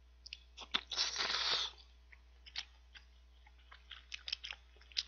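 A person slurping thick instant noodles off chopsticks in one loud slurp about a second in, then chewing them with scattered wet mouth clicks.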